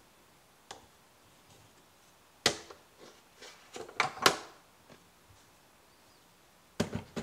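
Sharp metal knocks and clicks from handling espresso tools: a steel tamper and portafilter set down and picked up on the counter mat, loudest in a cluster in the middle. Near the end, two sharp clunks as the portafilter is fitted into the group head of a Breville Barista Express.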